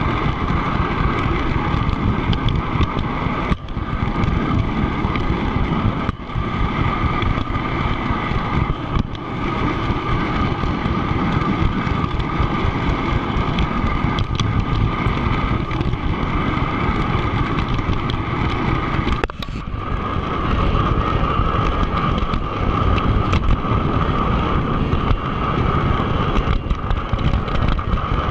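O scale model train rolling along the layout's track, heard from a camera riding on the train: a steady rolling rumble of wheels on rails with a constant hum, dipping briefly a few times and with the hum stronger in the second half.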